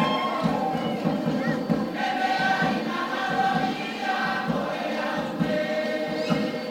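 Cook Islands group of men and women singing together in harmony, many voices holding long notes and moving together from note to note.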